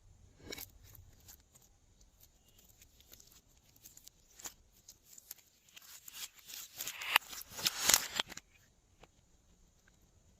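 Glossy slime being squeezed and worked by hand, making small sticky clicks and pops, scattered at first and then quick and loud for a couple of seconds around the middle to two-thirds of the way through.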